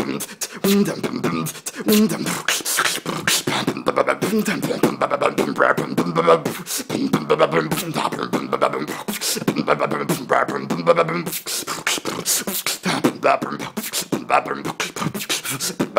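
Solo human beatboxing: a fast, continuous run of mouth-made kick, snare and hi-hat sounds, mixed with stretches of hummed or sung pitched tones.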